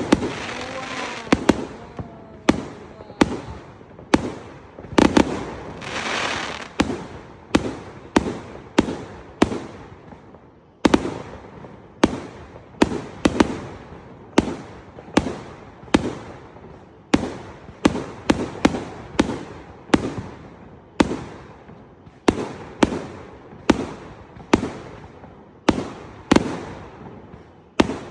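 Fireworks display: aerial shells exploding in a steady run of sharp bangs, roughly one to two a second, with bursts of crackle in the first several seconds.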